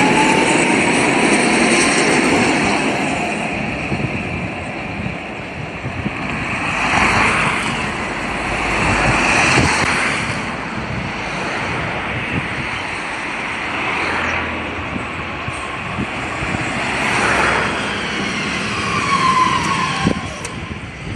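Electric trams running on street tracks: a traction-motor whine rises as a tram moves off near the start, over steady wheel-on-rail rumble and traffic. Another whine falls near the end as a modern tram is beside the stop.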